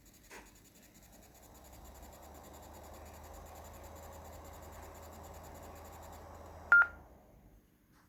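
Yaesu FTM-100DE transceiver receiving on Wires-X with a faint, steady high-pitched whine, the receive noise fault it is known for. A hiss with a low hum swells up from about a second and a half in, then stops with a short sharp beep near the end.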